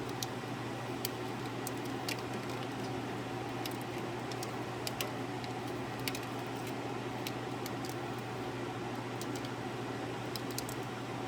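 Scattered light clicks and ticks of wiring harness plugs and wires being handled, over a steady low background hum.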